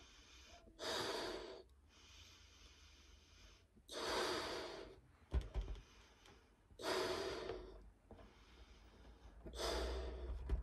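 A person inflating a 9-inch latex party balloon by mouth: four strong breaths about every three seconds, with fainter blowing between them as air goes into the balloon.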